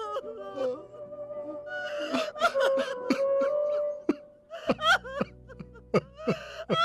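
Dramatic background music with long held notes, over a man's sobbing gasps that turn into broken, laughter-like sobs, coming more often in the second half.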